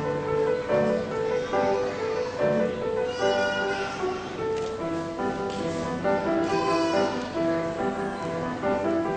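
Solo piano playing a simple melody over a recurring lower accompaniment, note by note at an even pace.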